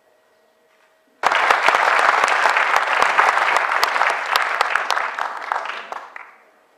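Audience applauding: many people clapping together. It starts suddenly about a second in and dies away near the end.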